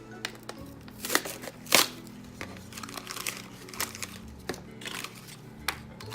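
Plastic blind-bag packaging crinkling and crackling as it is pulled open by hand, with the sharpest crackles about one and two seconds in. Faint background music plays underneath.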